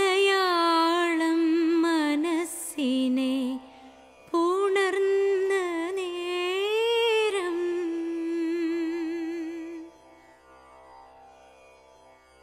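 A voice singing a wordless Carnatic-style melody, holding long notes that waver and slide in two phrases. The second phrase ends on a long held note that fades out about ten seconds in.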